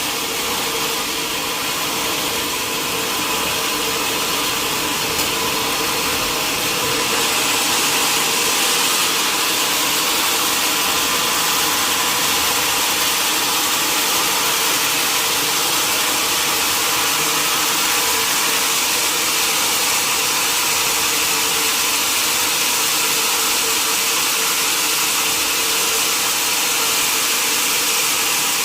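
Sawmill saw running steadily, a dense hiss with a steady hum, stepping up slightly in loudness about seven seconds in.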